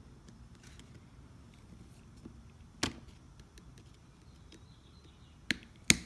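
Three sharp metallic clicks of a pin punch working a roll pin back into a Honda ignition lock housing: one about three seconds in, then two in quick succession near the end, the last the loudest.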